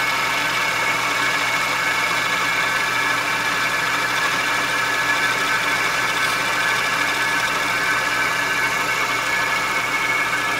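Milling machine running steadily, its fly cutter taking the last skim pass across newly relined brake pad lining.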